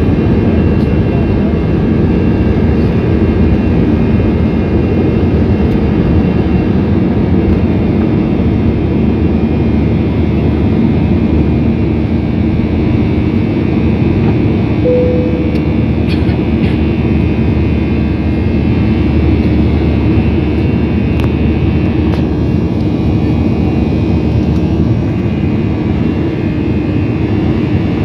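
Airbus A320 jet engines at takeoff thrust, heard inside the cabin as a steady loud noise through the end of the takeoff roll, liftoff and initial climb. A brief tone sounds about halfway through.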